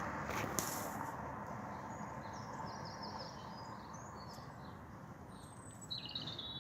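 Small birds chirping in short high phrases over a steady outdoor background noise that slowly fades, with a couple of sharp clicks in the first second.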